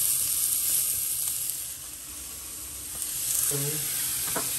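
Food sizzling in a frying pan: a steady frying hiss that drops briefly about halfway through, then comes back.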